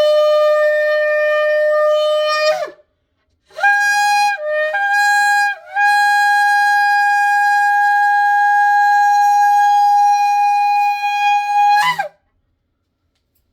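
Shofar blasts: a held note that stops about two and a half seconds in, then after a short pause a higher blast that breaks twice before settling into a long steady note of about six seconds, cutting off near the end.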